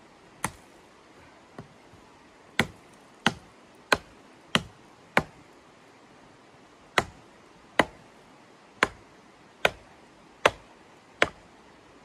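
A hatchet chopping small wood with about a dozen sharp strikes in two runs, roughly one every two-thirds of a second, with a short pause between the runs.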